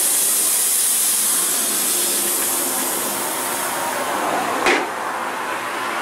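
Compressed air hissing steadily through an air-hose chuck held on a tyre's valve stem as the repaired tyre is inflated, easing off slowly, with a short, sharp, louder burst about four and a half seconds in.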